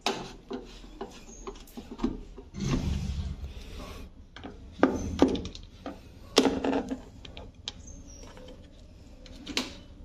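Hands and a screwdriver working on a front-load washing machine's detergent dispenser housing: scattered sharp knocks and clicks of plastic and metal parts, the loudest about halfway through, with a stretch of scraping and rubbing around three seconds in.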